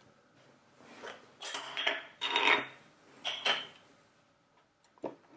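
Handling sounds as a lens is twisted off a Leica M8 rangefinder's bayonet mount: several short rubbing and scraping noises of metal parts, then a few small clicks near the end.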